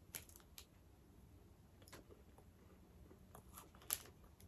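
Near silence with a few faint crunches and clicks of someone biting into and chewing a chocolate chip cookie; the sharpest comes about four seconds in.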